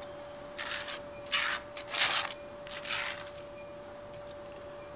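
Dry wood shavings and small kindling handled by hand for a freshly lit fire: four short, crackly rustles in about two and a half seconds, over a steady faint hum.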